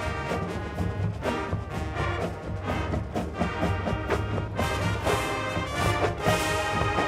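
A full marching band playing: brass sections holding chords over regular drum beats.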